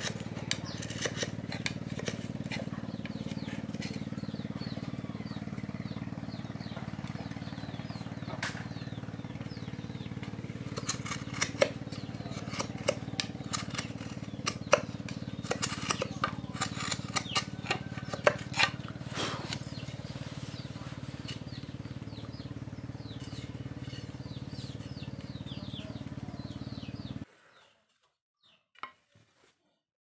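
A steady low machine hum with sharp clicks and knocks scattered through the middle, stopping abruptly near the end and leaving a few faint ticks.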